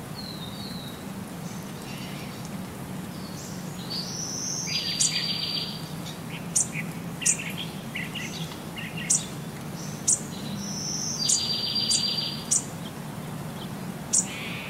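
High-pitched chirping: a short trill that repeats about every six seconds, with sharp high ticks in between, over a low steady hum.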